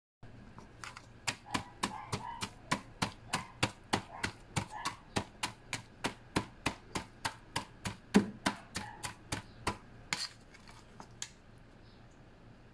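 Large kitchen knife chopping raw chicken breast on a cutting board: a steady run of sharp knocks, about three to four a second, that thins out to a few scattered strikes and stops near the end.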